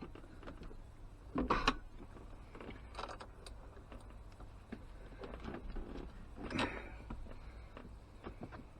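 A few faint knocks and clicks of parts being handled during car battery refitting, with a louder knock about one and a half seconds in and another near seven seconds.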